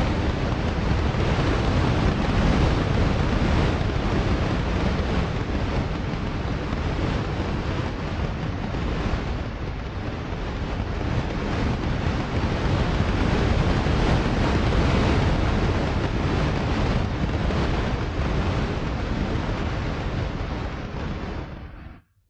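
A video's soundtrack played over the room's loudspeakers: a loud, steady wash of noise with no clear tones, which cuts off suddenly near the end.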